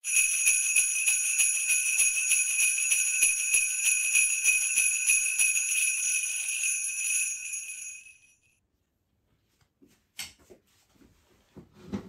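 Jingle bells shaken in a fast, even rhythm, ringing at several fixed pitches, then fading out about eight seconds in. A single sharp click follows about two seconds later, with a soft knock near the end.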